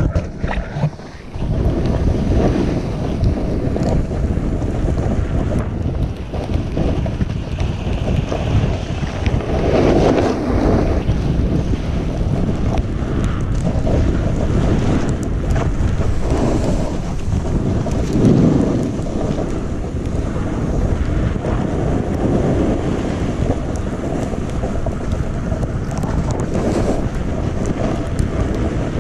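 Wind buffeting an action camera's microphone as a snowboarder rides through powder snow: a loud, steady rush that swells now and then.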